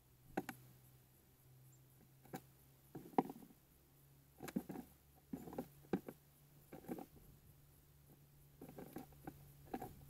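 Tufted titmouse on a clear plastic dish of peanuts in the shell: about ten light, irregular taps and clicks of its feet and bill on the plastic and peanut shells knocking together as it picks one up.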